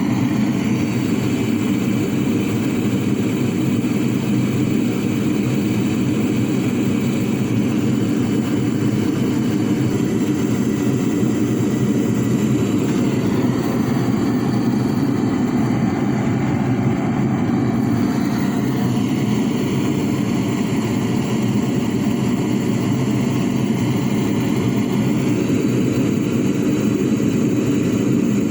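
Aerated concrete furnace being fired, giving a loud, steady rushing noise of forced air and flame, even throughout with no breaks.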